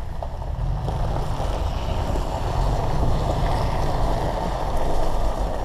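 SUV engine and driving noise heard from inside the cabin while driving on an ice-race course: a steady low rumble that slowly grows louder, then eases slightly near the end.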